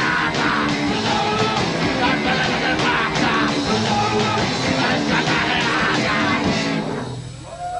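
A punk rock band playing loud and dense, with guitars, drums and vocals. The song ends about seven seconds in.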